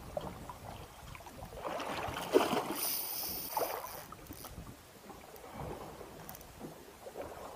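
Water lapping and slapping against the hull of a small boat drifting at sea, with a few sharper splashes about two and a half seconds in. A brief high whine comes about three seconds in.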